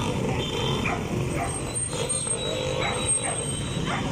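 A dog barking repeatedly, a few short barks starting about a second in, over a steady low rumble.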